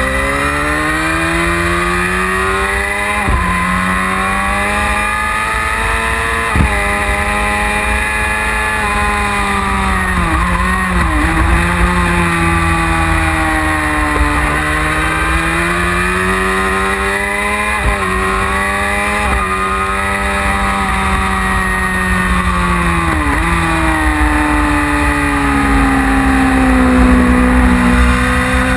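1999 Yamaha R6's 600 cc inline-four sport-bike engine under hard acceleration at high revs. The note climbs steadily and breaks sharply at each upshift, then drops away a few times when braking for corners, over steady wind noise on the microphone.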